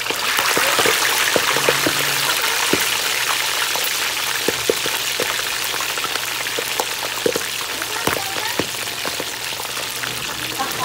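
Slabs of pork deep-frying in hot oil in a wok: a loud, dense sizzle with scattered pops of spattering oil. It swells as a second piece is lowered in with tongs and then eases off a little.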